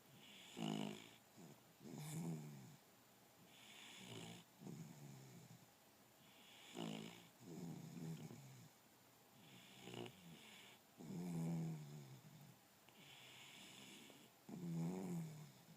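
A sleeping puppy snoring softly, one snore on each breath about every three seconds, with a faint breathy hiss between the snores.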